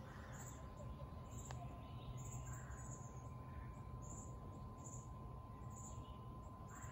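Faint outdoor ambience: short high chirps repeat about once or twice a second over a low rumble, with a single click about a second and a half in.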